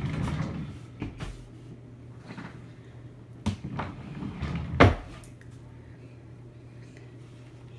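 A few knocks and clatters of household things being handled, like a cupboard or drawer being worked, the loudest just before five seconds in. Underneath runs a steady low hum from a ceiling fan.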